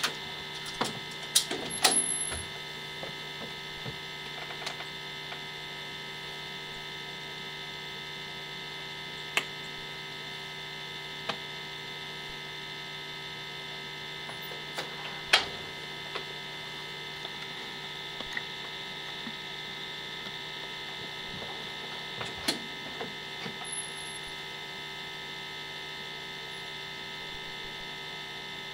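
Steady electrical hum with several higher whining tones laid over it, broken by a few sharp clicks, the loudest about a second and a half in, two seconds in, and just past the middle.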